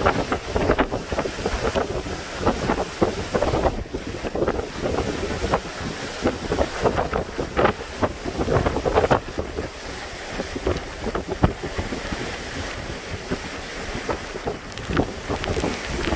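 Hurricane-force wind with driving sideways rain, a steady roar that swells and drops in gusts and buffets the microphone with repeated jolts.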